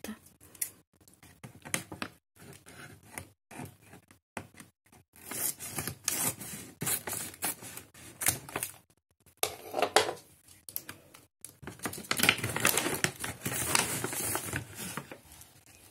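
Scissors snipping across the top of a plastic dry-dog-food bag, with the bag crinkling as it is handled. Near the end the opened bag is tipped and dry kibble rattles out into a hand.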